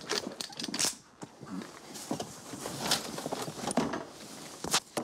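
Scattered clicks, knocks and rustling of clothes and hangers being pushed aside in a closet during a search, with faint low voices now and then.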